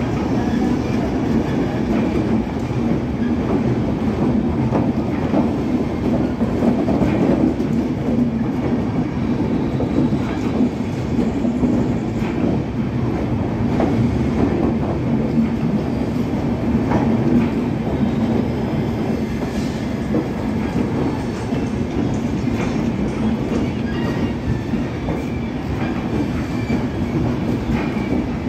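Indian Railways LHB passenger coaches rolling past at speed: a steady, continuous rumble with the wheels clicking over the rail joints.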